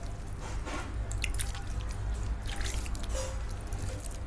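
Water sprinkled by hand onto potting soil in a container: irregular small drips and splashes as drops land on the damp soil, over a steady low rumble.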